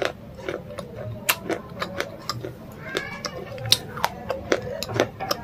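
Close-up eating sounds: a person chewing and swallowing food, with a run of wet mouth clicks and smacks, and a brief high squeak about three seconds in.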